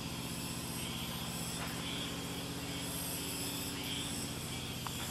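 A motor engine running steadily with an even low hum, a fine regular throb in it, and a high buzzing above.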